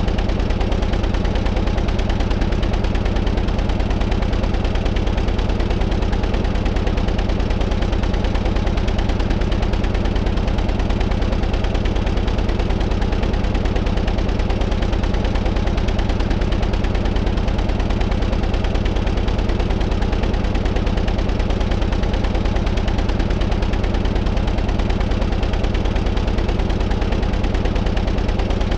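Car engine idling steadily, a fast even run of firing pulses that holds the same speed throughout.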